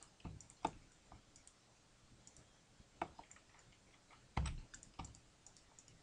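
Computer keyboard keys and mouse buttons clicking now and then, a handful of separate presses while shortcuts are typed and vertices selected in a 3D modelling program.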